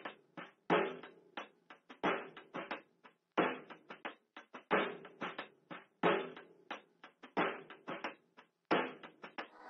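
A series of sharp percussive strikes at an irregular pace, each ringing out briefly. The strongest come roughly every second and a half, with lighter hits between.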